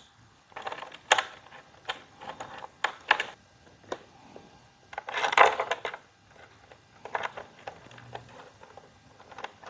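Small metal hardware clicking and clinking as wire ring terminals are handled and fitted onto a battery's terminal posts, with irregular light clicks and a longer, louder handling noise about five seconds in.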